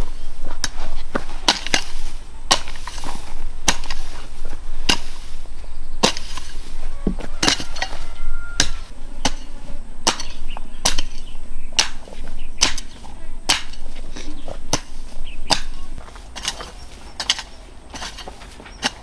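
A hand hoe chopping into lumpy red clay soil mixed with rice husks, in repeated sharp strikes about one or two a second; the strikes turn fainter for the last few seconds.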